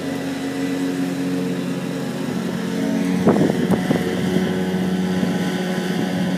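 John Deere X300 ride-on lawn tractor running steadily while mowing, its engine holding an even pitch and growing a little louder as it comes closer. A couple of short bursts of noise about halfway through.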